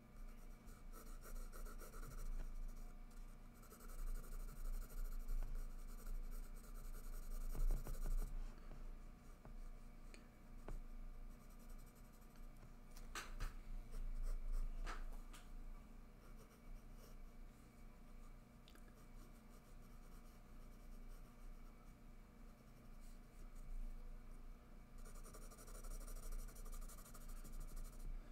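Graphite pencil scratching across sketchbook paper in shading strokes, busiest at the start and again near the end. There are two sharp clicks midway, over a steady low hum.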